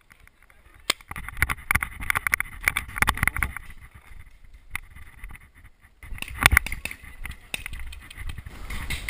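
Quick footsteps and rattling gear as a paintball player runs, in two spells of dense, irregular clicks and thuds, the loudest a sharp knock about six and a half seconds in.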